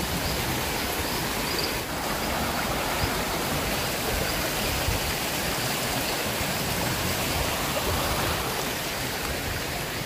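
Shallow rocky river rushing and splashing over stones and small cascades, a steady, even rush of water.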